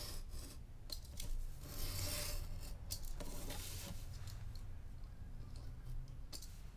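Snap-off craft knife cutting through a card template, several drawn scratchy strokes along a steel ruler and then along the drawn line, with a few light clicks in between.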